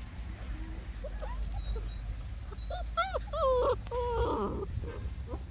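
Rottweiler puppies whining and yelping in play: a few faint short cries at first, then a run of louder, rising-and-falling whines about three seconds in.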